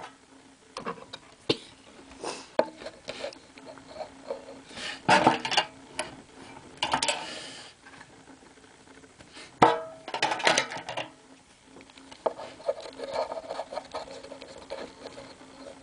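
Small plastic Bakugan toys handled close to the microphone: irregular clicks and taps of hard plastic, with louder rubbing and scraping of fingers a few times.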